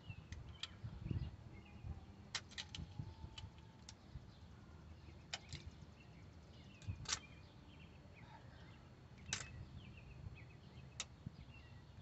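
Scattered light clicks and clinks of hand tools and metal car parts being handled, coming at uneven intervals over a faint low background rumble.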